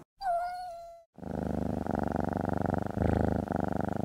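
Domestic cat purring: a steady, finely pulsing purr that starts about a second in, with a few brief breaks. Before it comes a short tone that falls in pitch and then holds.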